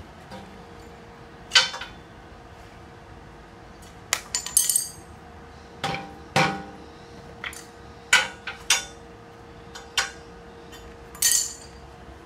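A hammer striking the metal body jig: about a dozen sharp, ringing metallic knocks at irregular intervals, some in quick runs of two or three.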